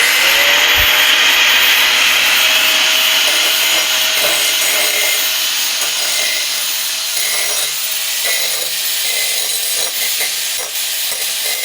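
Bosch GWS 800 angle grinder's 800-watt motor winding up to full speed in the first half-second, then running steadily with a high whine over a dense hiss.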